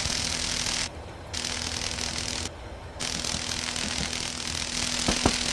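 Steady rattling, crackling noise over a constant buzz. It cuts out for a moment twice, and a few sharp clicks come near the end.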